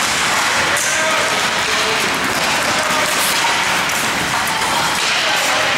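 Ice hockey rink sound during play: a steady hiss of skates on the ice with scattered spectator voices, and a brief sharper scrape about a second in.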